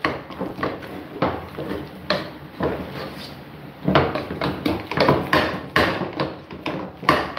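A utensil mashing and stirring soft mashed sweet potato in a non-stick pot, giving a run of irregular knocks and scrapes against the pan's sides and bottom, the sharpest near the end.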